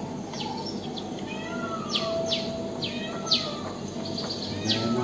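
Recorded birdsong played by a talking-book reader pen as the background sound of a pictured scene: a series of quick falling chirps with short whistled notes between them.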